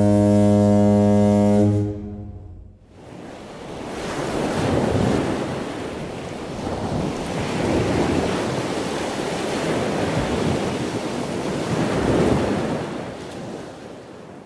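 A long, low, steady horn tone stops about two seconds in. Then the wash of ocean waves swells and recedes several times and fades out at the end.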